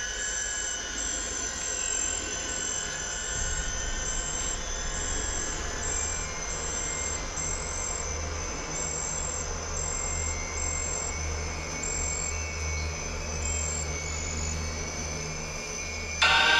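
Amazon rainforest ambience: a high-pitched insect chirp repeating about once a second over a steady low drone.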